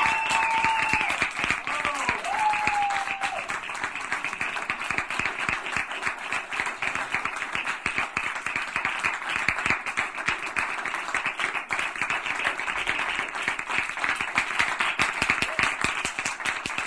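A small group of people clapping their hands, dense and continuous, with a voice calling out over the clapping in the first few seconds.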